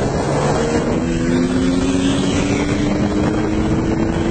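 Yamaha XJ6's inline-four engine accelerating hard under full throttle, its pitch climbing steadily, with wind rushing over the microphone.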